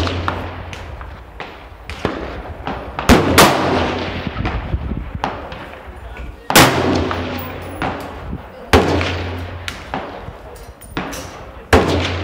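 Five loud gunshots at irregular spacing, two of them in quick succession about three seconds in, each ringing out with a long echoing tail across the range.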